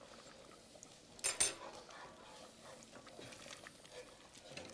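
Two quick clinks of a metal utensil against a stainless steel saucepan about a second in, then only faint low kitchen noise.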